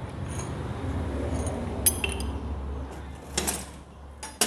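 Metal motorcycle engine parts clinking against each other as they are handled, with a few sharp clinks about two seconds in and again near the end, over a low steady hum.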